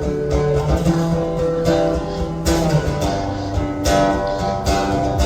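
Guitar strumming chords in a song's instrumental intro, with a sharp strum stroke every second or so over ringing chords.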